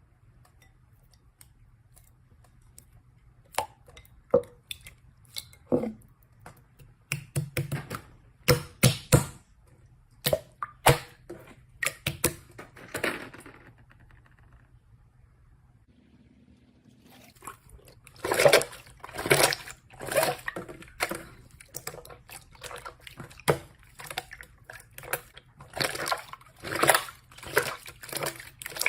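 Slime being squished and played with: irregular wet clicks and pops, with a pause of a few seconds about halfway through and busier popping afterwards.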